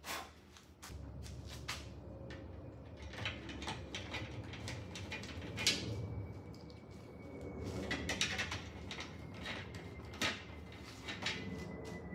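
Scattered knocks, clicks and rattles of a pass-through frame being handled and set into its opening against the metal-skinned wall of a truck habitat, ready to be bolted on.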